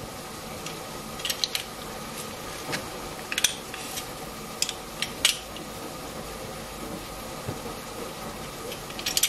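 Metal garlic press and knife clicking and scraping as garlic cloves are crushed and the pulp is scraped off into a glass bowl: a few short, sharp metallic clicks scattered over a steady background hum.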